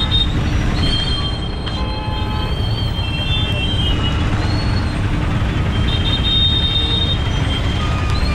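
Steady low rumble of wind and road noise from a bicycle ride through wet night traffic, with thin high-pitched squeals coming and going several times.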